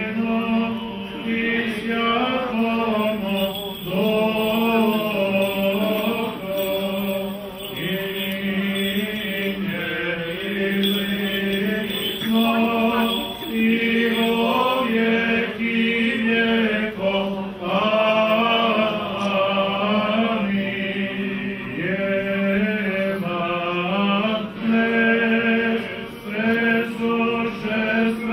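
Male Orthodox clergy chanting a liturgical hymn: a melody that rises and falls over a steady low held drone note.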